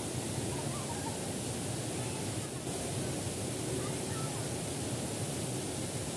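Steady rushing of water tumbling over rocks in a small stream cascade into a pool.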